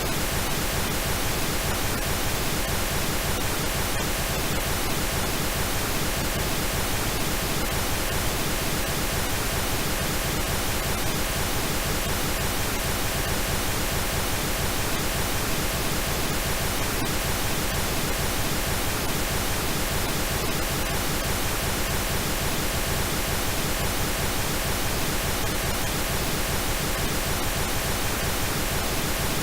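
Steady synthetic pink noise: an even, unchanging hiss across all pitches.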